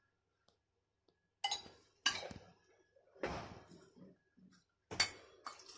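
Several sharp clinks and knocks, roughly a second apart, of a spoon against metal cookware and containers while turmeric powder is spooned over vegetables in a pressure cooker pan.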